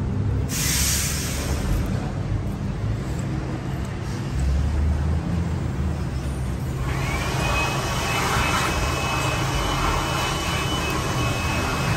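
Compressed air hissing through a flush gun into a car AC evaporator: a short hiss about a second in, then from about seven seconds a steady hiss with a thin whistle. A steady low machine hum runs beneath it.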